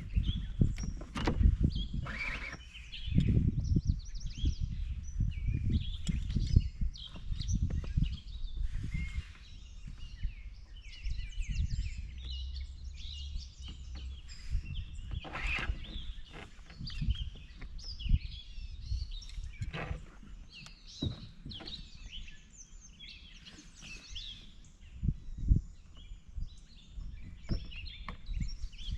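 Wild birds chirping and singing, with many short calls overlapping, over irregular low knocks and rumbling.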